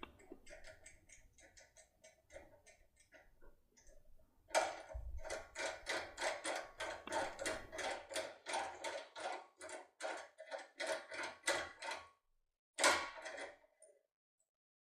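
Lock decoder tool working the pins of a Mul-T-Lock cylinder in short clicks: faint at first, then from about four seconds in a steady run of sharper clicks, about four a second. They stop, and one last short burst comes near the end.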